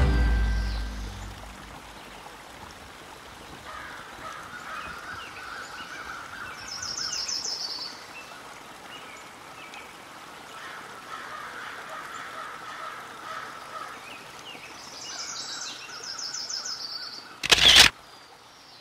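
Riverside outdoor ambience: a steady hiss with birds calling, including two bursts of rapid high trilled notes. Near the end comes a short loud burst of noise.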